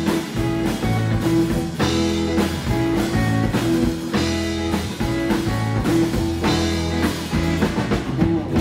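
Live rockabilly band playing an instrumental passage: electric guitar and acoustic guitar over upright double bass and drum kit, with a steady beat.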